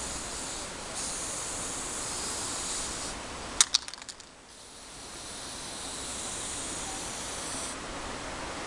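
Aerosol spray-paint can hissing in two long bursts, broken a little over three seconds in by a few sharp clicks.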